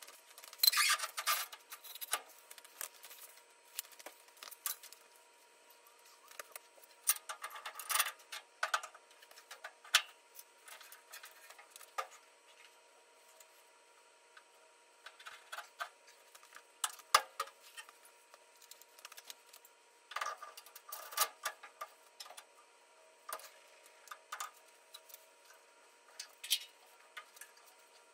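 Scattered metallic clinks, rattles and knocks of tools and mounting hardware as coilover shock absorbers are fitted into a VW Bug's rear suspension, in irregular clusters with short quiet spells between.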